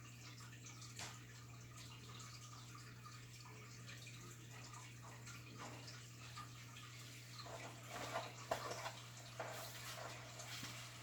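Ranchu goldfish feeding at the water surface in a bowl: faint small slurps, drips and splashes, busier and louder from about seven and a half seconds in, over a steady low hum.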